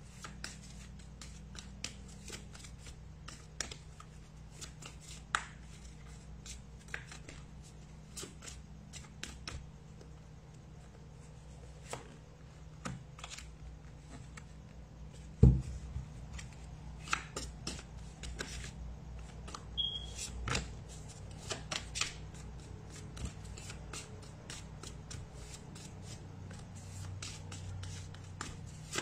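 A deck of cards shuffled by hand, giving an irregular run of soft card clicks and riffles, over a faint steady low hum. One much louder thump comes about fifteen and a half seconds in.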